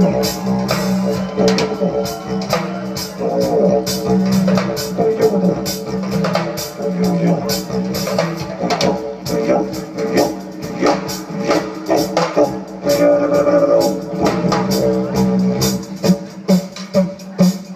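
Live rock band playing an instrumental passage: drums and guitar over a steady low drone, turning to a choppy, pulsing rhythm near the end.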